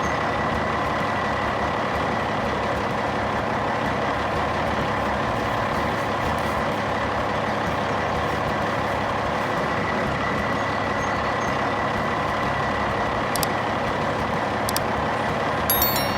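Heavy truck engine running steadily with a constant drone, with a few short sharp clicks near the end.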